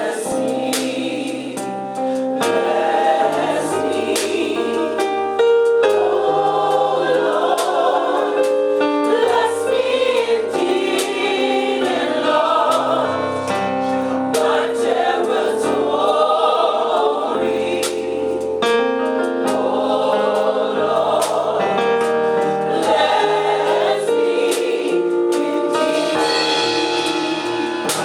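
Gospel choir singing in harmony, several voice parts holding and changing notes together over steady low notes.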